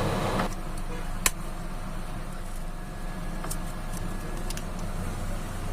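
A few small sharp clicks, one louder about a second in and fainter ones later, from the plastic case of a car key fob being handled for a battery change, over a steady low hum.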